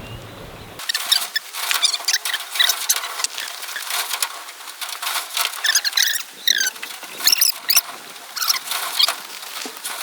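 Small animals scrabbling and squeaking: a rapid patter of light scratches and clicks mixed with short, high chirping squeaks, starting abruptly about a second in.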